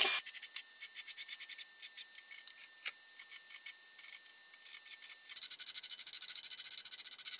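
Hand file scraping across the bevel of a steel knife blade held in a vise. It starts with light, scattered strokes, and about five seconds in it becomes a quicker, louder run of even scraping strokes.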